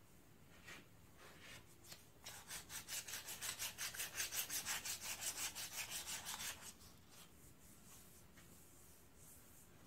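Hand sanding on a primer-coated spoked wheel: a few scattered rubbing strokes, then a fast even run of back-and-forth strokes, about seven a second, from about two seconds in to nearly seven, then slower strokes again.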